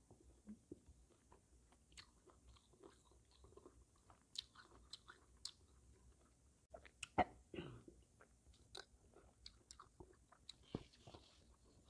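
A person chewing silkworm pupae close to the microphone: faint, scattered wet clicks and mouth sounds, with one louder click about seven seconds in.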